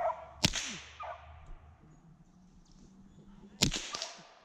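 Two gunshots about three seconds apart, each a sharp crack with a short fading echo, fired up into the treetops at squirrels.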